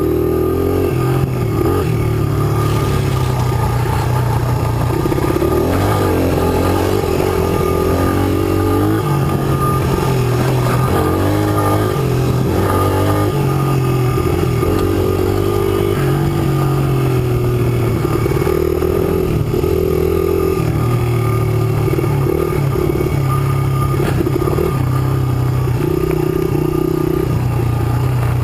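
Engine of a 2005 Honda CRF100F, a small single-cylinder four-stroke dirt bike, running under constantly changing throttle as it rides a rough trail. Its pitch steps up and down every second or two as the rider rolls on and off the throttle and shifts, with some light clatter from the bike.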